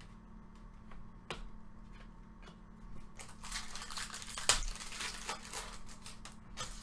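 Foil trading-card pack wrappers crinkling and cards being handled. A few scattered clicks come first, then a stretch of rustling and crackling from about three to six seconds in, with one sharp snap in the middle.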